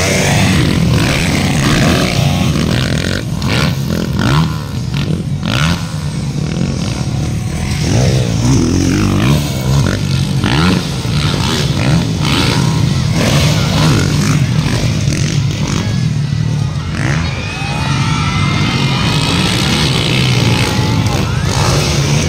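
Motocross dirt bike engines revving hard as the bikes race past on a dirt track and take jumps. The pitch rises and falls, with several climbing glides in the second half.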